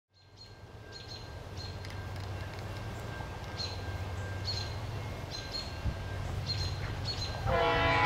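Low steady rumble of an approaching diesel freight train, with short high chirps repeating every half second or so. Near the end, the lead B40-8W locomotive's Leslie RS3L five-chime horn starts to blow: a loud chord of many steady tones.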